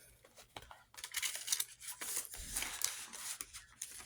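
Paper crinkling and rustling as it is handled, a dense crackle that starts about a second in and keeps going.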